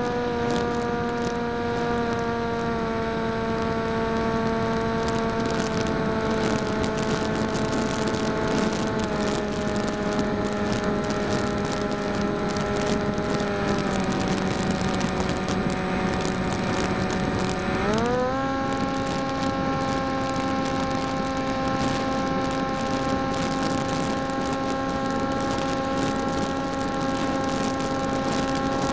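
Electric motor and propeller of a PopWing flying wing, heard from its onboard camera in flight, a steady whine over wind rush. The motor's pitch steps slowly down over the first eighteen seconds or so, then rises quickly as the motor speeds up and holds steady.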